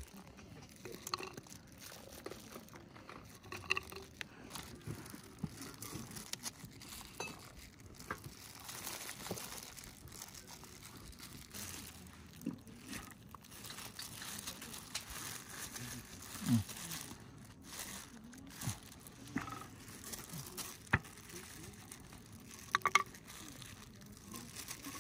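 Scattered light clicks, knocks and crinkling rustles of objects being handled, over a quiet background.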